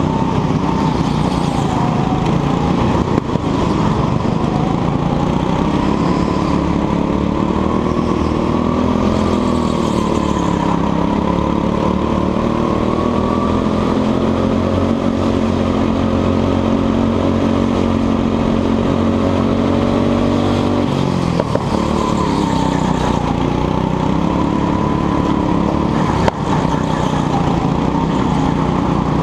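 Onboard sound of a go-kart's engine running hard, its pitch rising and falling with speed through the corners. The pitch holds high and level for several seconds along the straight, then drops sharply about two-thirds of the way in and climbs again.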